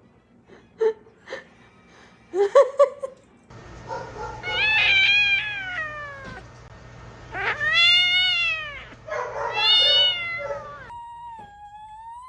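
A cat yowling: three long, drawn-out meows, each rising and then falling in pitch. They follow a few sharp clicks and a short lower call near the start.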